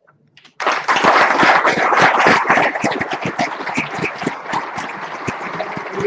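Audience applauding. The clapping starts suddenly about half a second in after a brief hush, is heaviest over the next two seconds, then eases a little but carries on.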